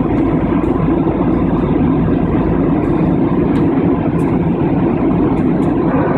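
Steady drone of a jet airliner in flight, heard from inside the cabin at a window seat: engine and airflow noise, even and unbroken.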